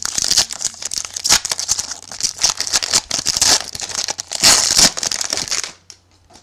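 A 2011 Playoff Contenders football card pack wrapper being torn open and crumpled by hand: a dense, loud crackling that stops near the end.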